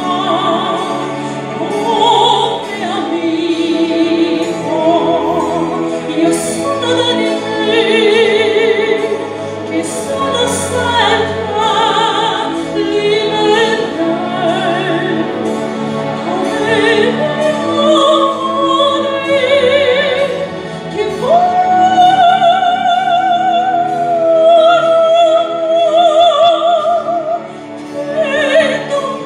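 A soprano singing in operatic style into a handheld microphone, her voice wavering with strong vibrato. Near the end she holds one long high note.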